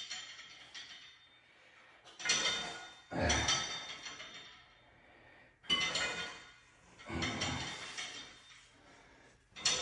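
A man breathing hard, in and out in heavy rushes about every three and a half seconds, catching his breath after a set of exercise.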